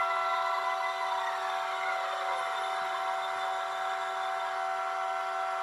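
Model locomotive sound decoder playing a looped emergency-brake double horn: several horn tones held together steadily without a break in the loop. Underneath, a tone falls in pitch about a second and a half in, with the motor sound running down as the train brakes.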